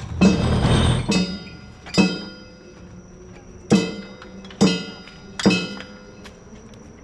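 Festival music paused between phrases while a struck metal gong rings out six times at uneven intervals, each stroke sharp and followed by a ringing tail.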